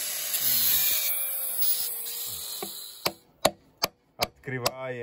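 Angle grinder cutting into the cast-iron block of a DT-20 tractor engine, its motor tone wavering under load, stopping suddenly about three seconds in. Then a hammer strikes the cut section of the block about five times, roughly two and a half blows a second, to knock out an inspection opening.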